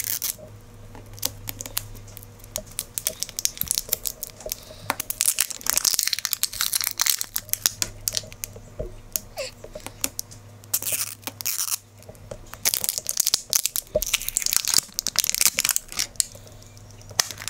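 Crinkly foil-like plastic wrapping of an LOL Surprise toy ball being peeled, torn and crumpled by hand: irregular runs of sharp crackles, busiest in the middle and again in the later part, with quieter handling in between.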